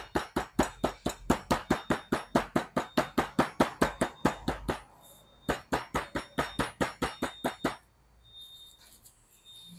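Rapid light taps of a meat mallet flattening pieces of boiled cassava inside a plastic bag on a cutting board, about six taps a second. There are two runs of tapping with a short pause about halfway through, and the tapping stops near the end.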